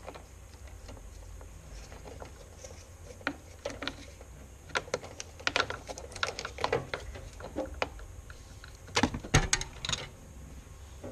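Hands working on the wiring inside a car door: irregular light clicks and taps, with a louder clatter of knocks about nine seconds in.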